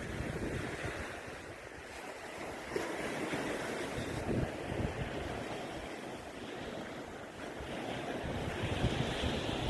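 Strong gale-force wind gusting and buffeting the microphone in low rumbles, over a steady rushing noise that swells again near the end.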